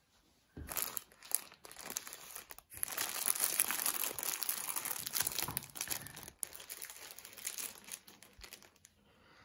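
Thin clear plastic wrapping crinkling as hands grip and turn a folded umbrella inside it. The crinkling starts about half a second in, runs densest through the middle and dies away near the end.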